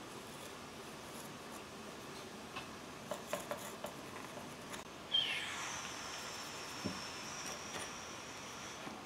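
Light clicks and taps of clay-modelling tools on a wooden work table. About five seconds in comes a sudden squeak that falls in pitch, followed by a thin high tone held for about three seconds.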